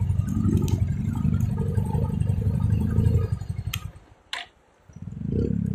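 Motorcycle engine running with a loud, low pulsing note; it falls away about four seconds in, with a couple of sharp clicks, then picks up again about a second later.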